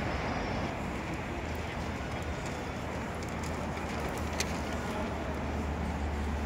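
Steady city road-traffic noise, a continuous low rumble of passing cars, with one light click about four seconds in.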